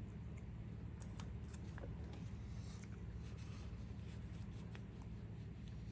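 Faint scattered small clicks and soft rubbing from an Orient Bambino open-heart mechanical wristwatch being handled, its crown worked to show hand-winding and the hacking seconds hand, over a low steady hum.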